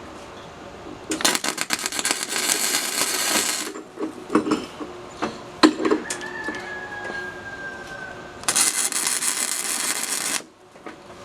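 Electric arc welding crackling on steel in two runs, the first about two and a half seconds long and the second about two seconds near the end, with a few light metal taps and clinks between them.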